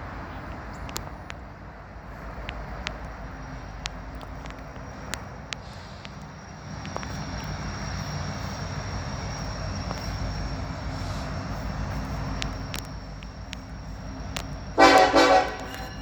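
A loud vehicle horn blast lasting under a second, near the end, over a steady low background rumble.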